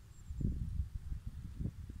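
Fork and knife cutting into lamb in a cast-iron pot, heard as low, muffled, irregular knocks and rumble, with faint high bird chirps early on.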